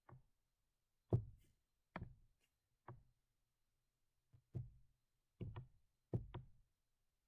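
Faint, irregular taps and clicks from the drawing input on the desk, about nine over a few seconds, some in quick pairs, each short with a brief dull knock to it, made while short line strokes are being sketched.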